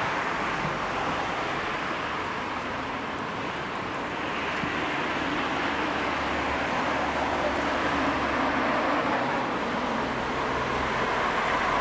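Steady vehicle rumble and road noise, an even hiss over a low hum with no firework bangs.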